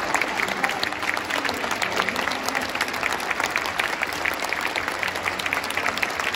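Football supporters in the stand applauding the players, a dense, steady mass of hand claps with many sharp claps close by.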